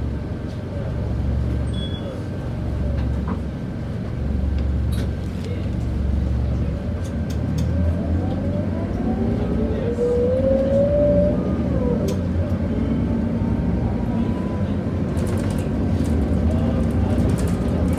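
Scania K94UB city bus heard from inside the cabin: its rear-mounted diesel engine idles with a pulsing low rumble, then about seven seconds in the bus pulls away and a whine rises in pitch as it accelerates.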